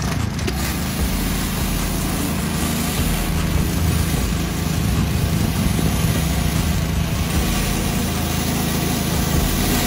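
Pressure washer running steadily through a rotary surface cleaner on concrete: a low, even hum under a loud, continuous hiss of spraying water jets.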